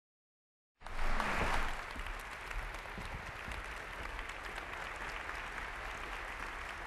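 Large seated audience applauding, cutting in abruptly about a second in, loudest at first and then steady.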